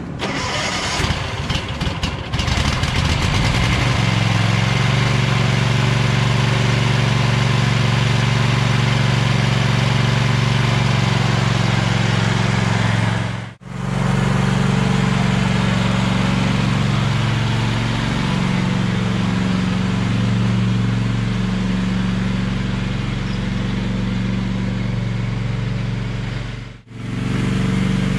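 Lawn tractor's 18 HP Tecumseh V-twin engine cranking on the starter for about two seconds, then catching and running steadily. It starts fine after being power-washed, the water having done no harm to the carburetor. The sound breaks off sharply twice.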